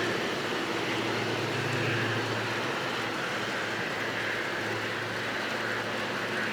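Passenger train pulling out of the station: a steady low drone with a running hiss of rolling noise over it.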